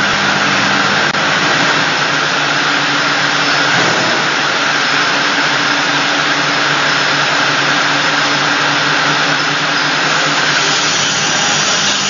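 Steady machinery noise of an automatic glass bottle washing line and its conveyor running, an even whir with a low motor hum that weakens about four seconds in.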